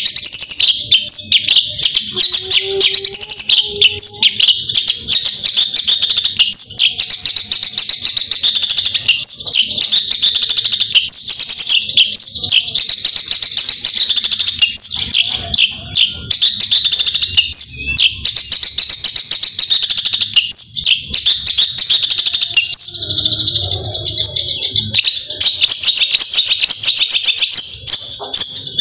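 Long-tailed shrike (cendet) singing a loud, rapid, non-stop chattering song. Near the end it breaks off for about two seconds, then resumes.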